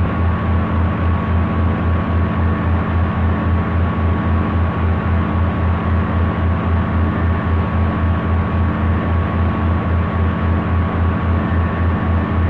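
A steady low drone that throbs evenly about four times a second, with a thin steady tone and a hiss over it.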